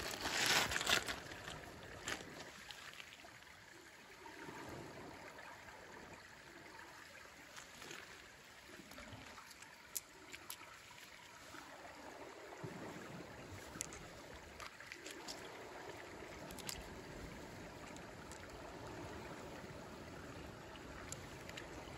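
Shallow lake water lapping and trickling gently over beach pebbles, louder for the first second or so, with a few light clicks.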